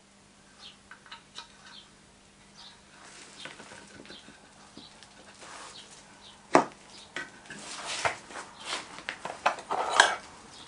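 Wooden moulding flask being handled: light taps and rustles, then one sharp wooden knock about six and a half seconds in as the top box (cope) is seated on the bottom box (drag), followed by a run of scraping and scuffing that ends in a louder clatter near the end.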